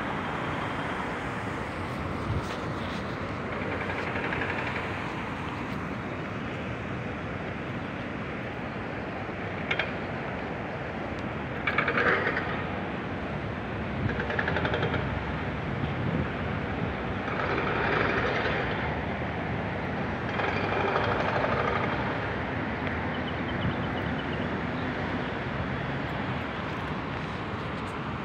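Outdoor background noise: a steady rush with a few brief swells louder than the rest, and no clear single source.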